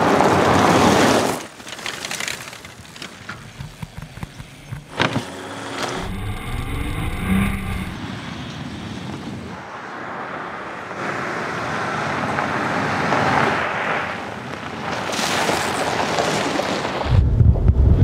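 Mercedes-Benz G 350 BlueTEC off-roader driving on a rough mountain track, with rushing tyre and wind noise that rises and falls. There are scattered knocks and a sharp knock about five seconds in, and the engine's low rumble is strongest near the end.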